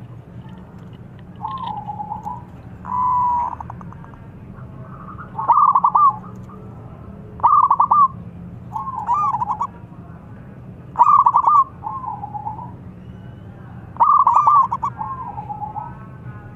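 Zebra dove (perkutut) cooing: a series of short, quick-stuttering coo phrases repeated every second or two, some louder than others.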